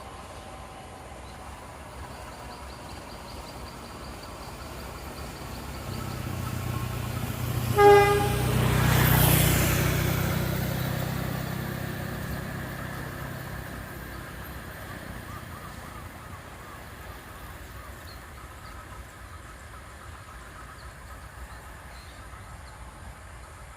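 A train passing by: a short horn blast about eight seconds in as the low rumble and rail noise swell to a peak, then slowly fade away as the train goes off.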